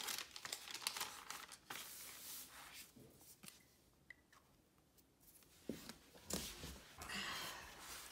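Thin pages of a Hobonichi planner rustling and flicking as they are leafed through, then a few soft thumps and a brushing of a hand over the paper as the book is pressed open near the end.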